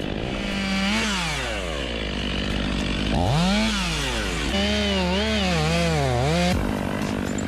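Stihl chainsaw's two-stroke engine revved repeatedly, its pitch climbing high and dropping back several times, with a quick up-and-down warble of blips near the end.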